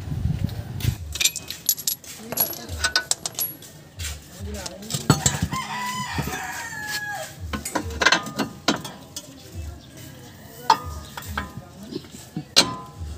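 A rooster crowing once in the background, a drawn-out call about five seconds in that falls away at its end, among scattered metallic clinks of tools and car parts being handled.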